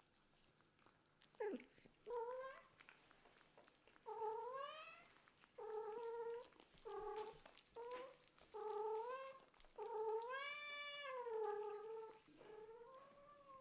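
Cat meowing over and over, about ten meows of varying length, the longest a drawn-out rising and falling one near the end.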